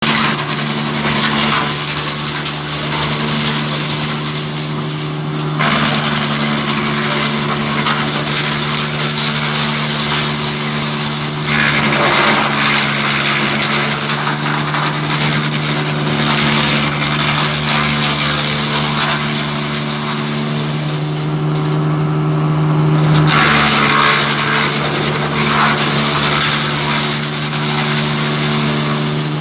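Hasatsan DP 700 T wood chipper running with a steady engine drone and a harsh shredding noise as wood is fed through. The shredding eases off for a couple of seconds about three quarters of the way in, then picks up again.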